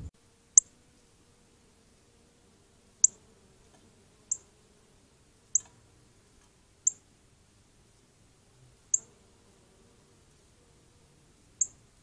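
Northern cardinal giving sharp, high chip calls, each note dropping quickly in pitch, seven in all, spaced one to two and a half seconds apart.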